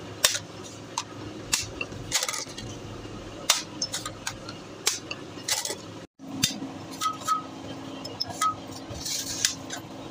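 Irregular sharp metal taps and clinks of a hammer striking a punch held on a steel truck clutch disc, knocking out its rivets, with a brief dropout about six seconds in.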